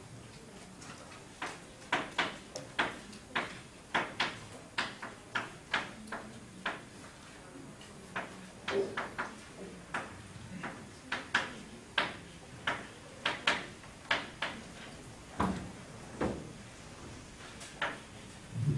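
Chalk clicking and tapping against a blackboard as lines of code are written by hand: a string of sharp clicks, about two or three a second, with a couple of brief pauses.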